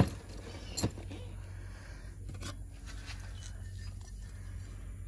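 A few brief clicks and light scrapes from a hand handling a metal roof-rack slat, over a steady low background rumble.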